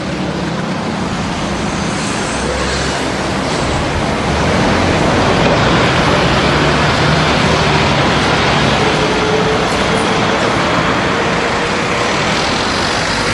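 City street traffic: a steady wash of vehicles going by, a little louder about four seconds in, with a faint whine that rises slightly in the second half.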